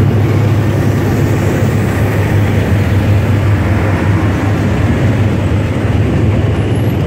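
State Railway of Thailand GE diesel-electric locomotive No. 4011 passing at very close range, its diesel engine running with a loud, steady low hum over the noise of the wheels on the rails, and the first passenger carriage following behind it.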